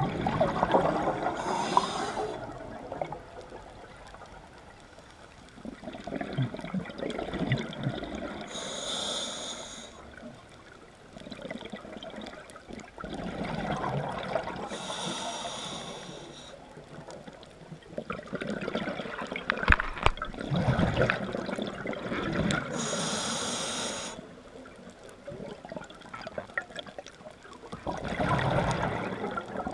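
Underwater recording of a scuba diver breathing through a regulator: five breaths about six seconds apart, each a short hiss followed by a gurgling rush of exhaled bubbles.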